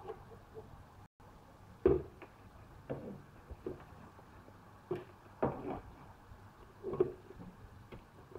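Plastic bottles and a cup being handled and set down on a wooden table: a series of irregular knocks and taps, about seven in all, the loudest about two seconds in.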